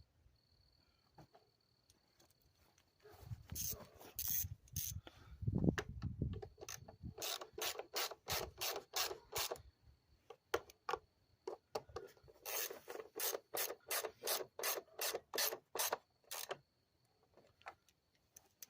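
Ratchet wrench cranked back and forth in quick strokes, about four a second, in two runs of a few seconds each, after a stretch of low rubbing and handling noise.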